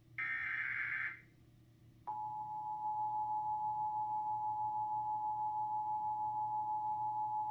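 Emergency Alert System tones: a one-second burst of the SAME header's data tones, then, about two seconds in, the EAS attention signal starts, a steady two-tone alarm that runs on, announcing a tornado warning.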